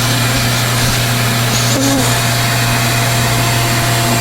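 Bee vacuum running steadily at low suction, an even drone with a constant low hum, as bees are drawn off the honeycomb into its tube.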